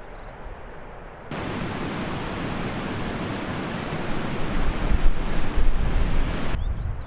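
Wind blowing across the microphone: a loud rushing hiss with gusty low buffeting. It starts abruptly about a second in and cuts off suddenly near the end.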